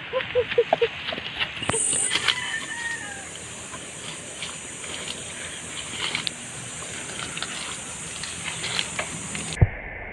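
Animal calls: a quick run of short pitched calls, about three a second, fading out within the first second, then a faint drawn-out call around two to three seconds in. Scattered crackles and clicks follow.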